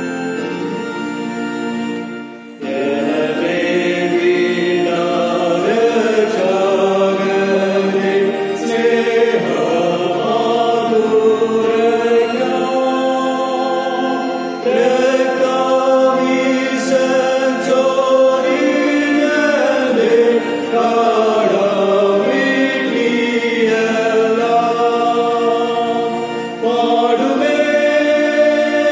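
A Malayalam church hymn sung to organ accompaniment. An organ introduction of held chords ends about two seconds in, and the singing begins after a brief pause.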